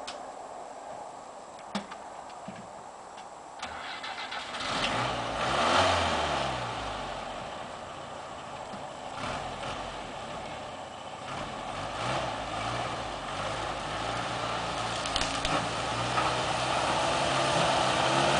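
1963 Renault 2087 van's engine starting about four seconds in and revving up, then running steadily as the van drives off, growing louder near the end. A couple of sharp clicks come before it starts.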